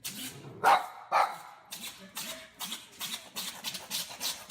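A dog making a series of short, sharp sounds: two louder ones about a second in, then a quicker run of fainter ones.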